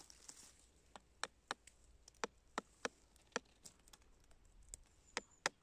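A hammer tapping the handle of a chisel, driving its blade into the wood of a stump. It makes a series of sharp knocks, about three a second, starting about a second in.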